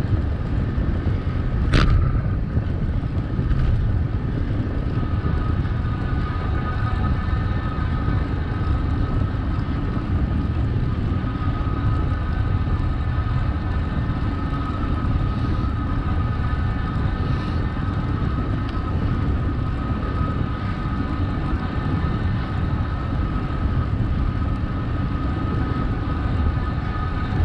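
Steady rumble of wind and riding noise from a bicycle rolling along, with a faint steady whine throughout and a sharp click about two seconds in.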